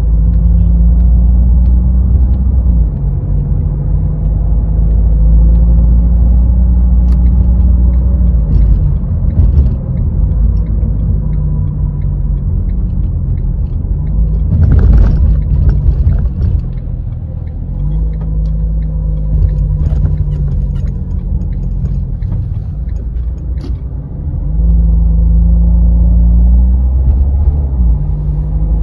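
Renault car driving in city traffic: steady low engine and road rumble, the engine note stepping up and down in pitch several times as it changes speed and gear. A brief louder rush of noise comes about halfway through.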